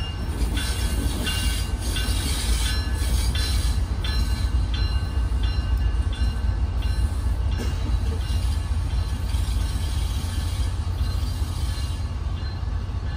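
Union Pacific diesel locomotives moving slowly as a light-engine consist: a steady low engine rumble, with short, repeated high-pitched squeals from the wheels on the curve and switches.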